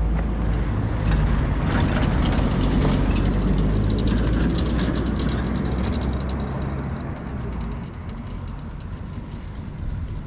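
Motorcycle engines running, a steady low rumble that drops away about three-quarters of the way through.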